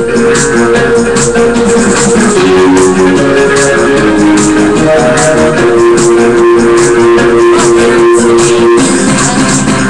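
Loud music with a steady beat of about four strokes a second under held, changing notes, played for dancing. There is no speech.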